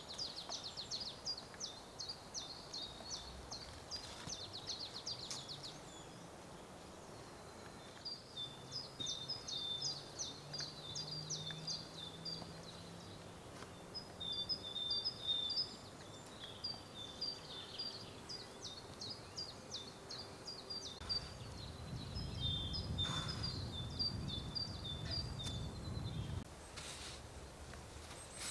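A songbird singing repeated phrases of rapid, high trilled notes. A low rumble joins for a few seconds near the end.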